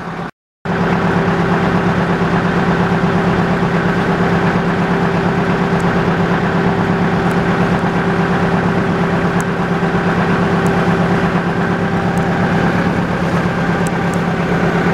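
Motor boat's engine running steadily under way, a constant low drone with a steady hum.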